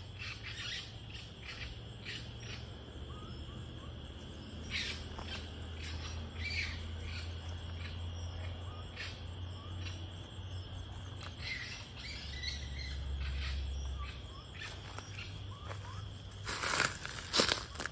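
Woods at night: a steady high insect drone over a low hum that stops about fourteen seconds in, with scattered faint chirps and crackles. Footsteps in dry leaf litter come near the end.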